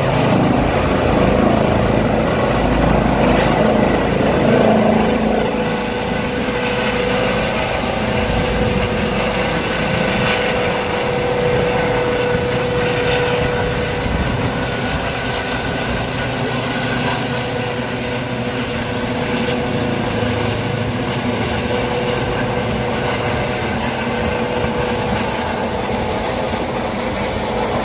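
Airbus H135 twin-turbine helicopter lifting off and climbing away overhead: steady rotor and turbine noise with a whining tone, loudest for the first five seconds or so, then easing slightly as it gains height.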